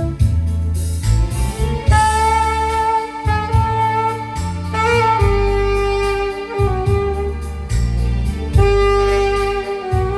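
Alto saxophone playing a slow melody in long held notes, over keyboard accompaniment with a steady bass line and beat.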